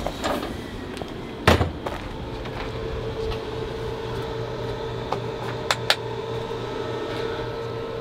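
One sharp clunk about a second and a half in as the RV's pass-through storage compartment door is opened, then a steady electrical hum with a few light clicks around the middle.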